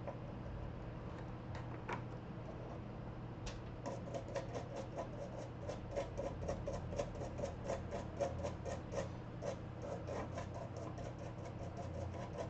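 Scrubbing flux residue off a freshly soldered laptop circuit board: light scattered scratches, then from a few seconds in a fast run of short scrubbing strokes, about four or five a second.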